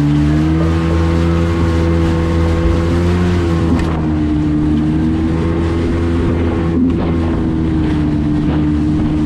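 Jet ski engine running under way at a steady cruising speed, its pitch stepping up slightly at the start and easing a little about four seconds in, over the rush of water and spray along the hull.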